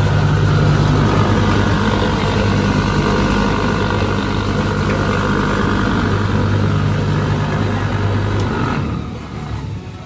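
A motor running loudly and steadily with a constant low hum, easing off about nine seconds in.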